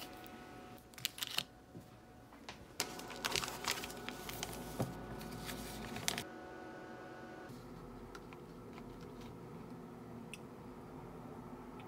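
Plastic snack packaging being handled and opened, with clusters of sharp crinkles and clicks over the first six seconds. After that only a faint steady background hum remains, with a few small ticks.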